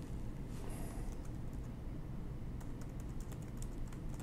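Typing on a laptop keyboard: irregular key clicks, thickest past the middle, over a steady low hum.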